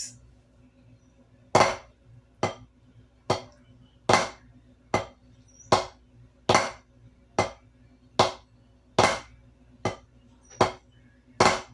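Drumsticks playing the Swiss Army triplet slowly: even, sharp strokes about one a second, in groups of three with the first of each group accented.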